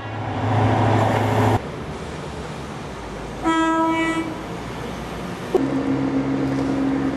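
Train horn sounding over the rushing noise of a train: a short blast about halfway through, then a long, steady lower note that starts abruptly a little past the middle and holds.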